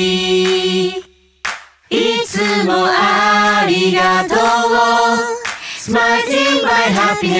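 A group of voices singing a J-pop song together in harmony, mostly without accompaniment. It breaks off for a short pause about a second in, and a couple of sharp claps sound along with the singing.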